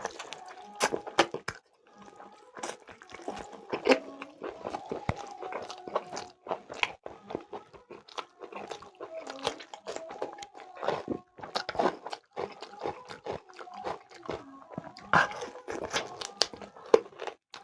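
Close-miked chewing and biting of chicken leg curry with rice: irregular wet smacks and crunchy clicks that come and go through the stretch.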